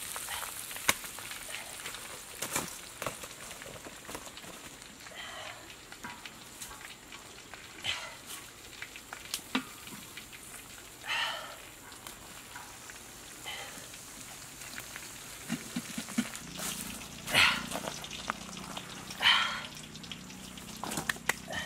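Fish and bamboo shoots frying in a large iron wok, a steady sizzle, with a metal spatula clicking and scraping against the pan as they are stirred.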